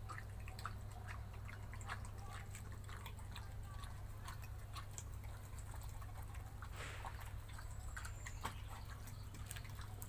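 German Shepherd eating from a metal bowl: many small, irregular clicks of chewing and lapping.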